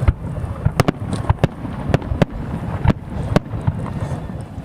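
Fireworks salute: an irregular run of sharp bangs, two or three a second, over a continuous low rumble.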